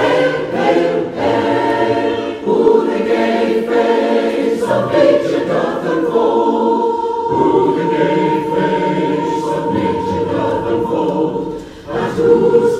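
Choir singing a sacred piece in a live concert recording, with long held notes, including one high note sustained for several seconds in the middle.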